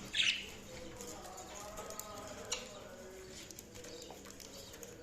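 Budgerigars chirping: one loud, sharp chirp at the start, then softer, wavering warble-chatter with a sharp click about halfway through.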